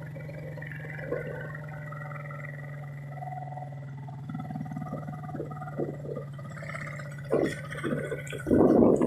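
Small boat engine running with a steady low drone, with scattered knocks and a louder noisy burst near the end.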